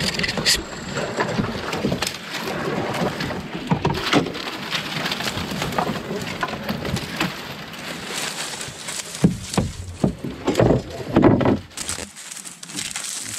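A small boat being paddled through dry cattails and reeds: dry leaves rustling and scraping along the hull and paddle, with splashes and clunks from the paddle strokes. Louder knocks and scrapes come near the end.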